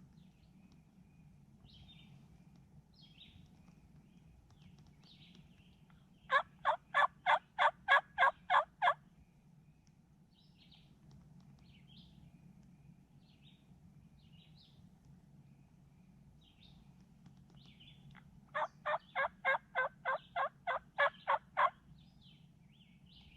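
Hunter's turkey call sounding two runs of hen yelps, about ten evenly spaced yelps each at roughly four a second, the second run coming about twelve seconds after the first, calling to gobblers to get them to answer. Faint songbird chirps in between.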